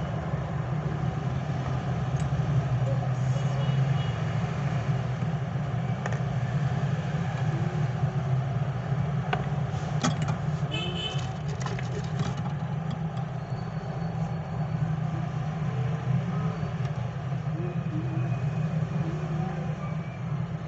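A steady low hum runs throughout. About ten seconds in comes a cluster of light clicks and metallic clinks from a hand watch case press closing on a watch and the metal link bracelet being handled.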